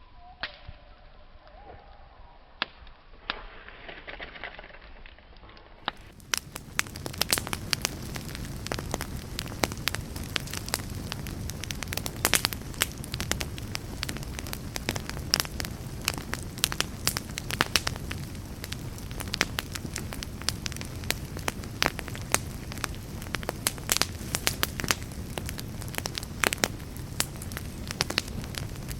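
Wood campfire crackling and popping, with dense sharp snaps over a steady low rumble of flames. For the first six seconds or so the sound is quieter and duller, with only scattered pops, before the full crackle comes in suddenly.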